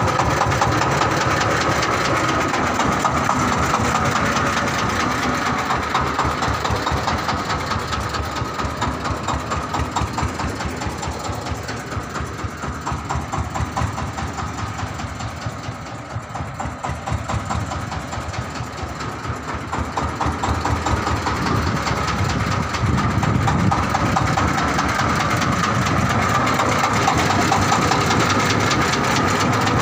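Engine of a homemade 4x4 ledok truck running steadily with an even, rapid firing beat, dipping somewhat in the middle and coming back up after about twenty seconds.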